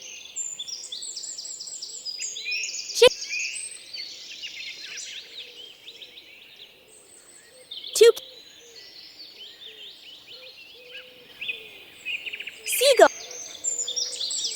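A chorus of small birds chirping and twittering steadily, with three short loud sound-effect blips about five seconds apart; the last one drops in pitch.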